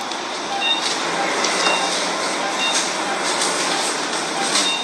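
Operating-room patient monitor beeping a short high tone about every two-thirds of a second over a steady rushing background noise, with a few soft clicks and rustles of handling.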